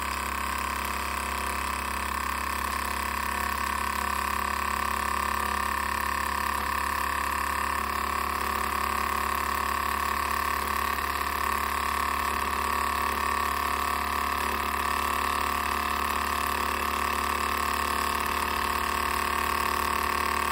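SEL 1550 Major model steam engine running steadily under steam, a continuous even sound with a high tone and hiss that grows slightly louder. The engine, which arrived seized, is running pretty well.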